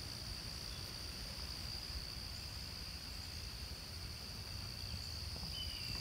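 Steady insect chorus: a constant high-pitched trill, with a low rumble underneath and a faint short falling call near the end.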